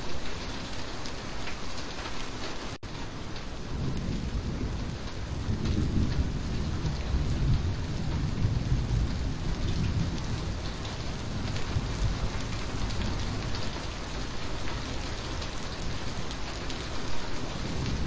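Steady heavy rain falling, with a low rolling rumble of thunder that swells about four seconds in and fades out over the next several seconds. There is a momentary dropout in the rain about three seconds in.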